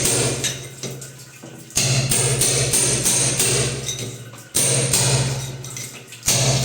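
Electric hammer drill chiselling into a masonry wall in repeated bursts about every two to three seconds, each starting suddenly and fading away, as the wall is broken back to seat a concealed wall mixer at the right depth.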